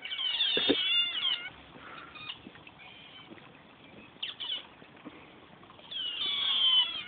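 Asian small-clawed otters calling with high, slightly falling squeals: a burst of overlapping calls at the start, two short calls in the middle, and another long burst near the end.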